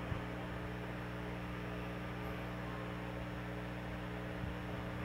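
A steady low electrical hum with an even hiss behind it.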